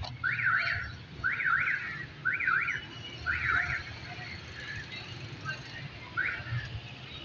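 A bird calling: groups of two or three quick rising-and-falling chirps, about once a second, then a pause and one more call near the end.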